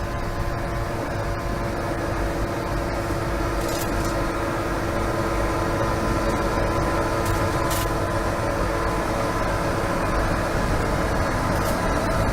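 Electric motor of a Litter-Robot Open Air automatic cat litter box humming steadily as it runs, with a few faint clicks.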